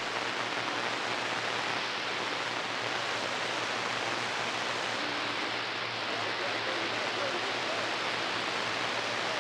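Steady hiss of static from a CB radio receiver on channel 6 (11-metre band) with the squelch open, heard between transmissions while listening for a reply.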